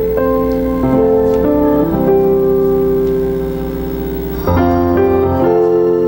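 Keyboard playing slow, sustained chords over bass notes, changing chord every second or so, with one chord held for about two and a half seconds in the middle.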